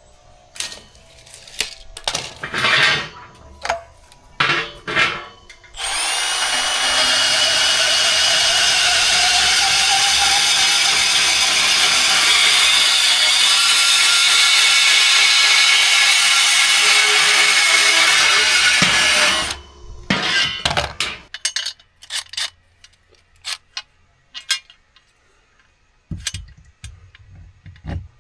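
An electric power tool runs steadily for about thirteen seconds, starting about six seconds in. It is set between scattered knocks and clatter of handled material and tools.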